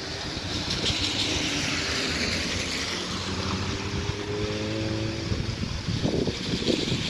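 A Volkswagen Golf hatchback drives past on a wet road, its tyres hissing on the water, with a steady engine note that rises a little as it pulls away.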